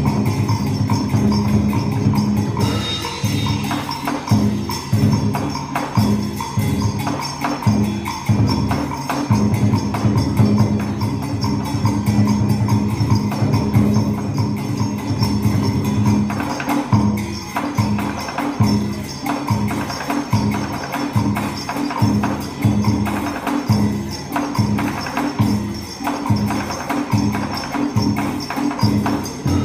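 Traditional Vietnamese water puppet theatre music: an ensemble playing with a steady, regular percussion beat.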